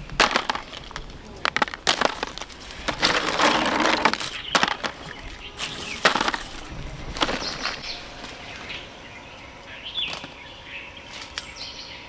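Leafy branches rustling, with twigs cracking and snapping in irregular bursts, loudest about three to four seconds in. Birds chirp briefly a couple of times near the end.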